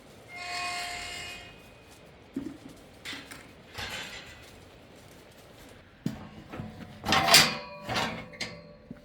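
A short pitched animal call near the start, then scattered knocks and, from about six seconds in, a burst of clattering with some metallic ringing.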